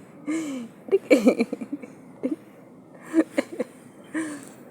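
Short, separate vocal sounds with a rising-and-falling pitch, broken by pauses, with a few sharp clicks about three seconds in.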